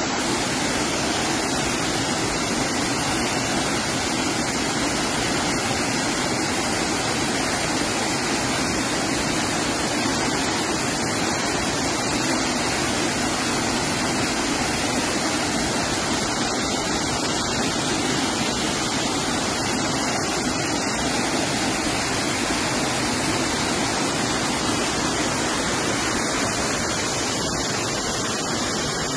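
Waterfall in full flow pouring over stepped rock ledges and rushing through a rocky stream: a steady, loud rush of water.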